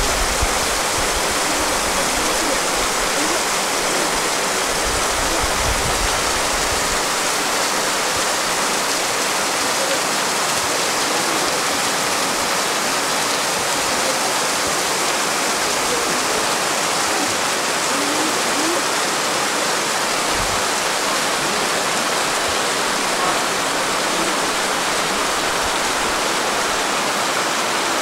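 Mountain stream rushing steadily, a constant even water noise with no let-up.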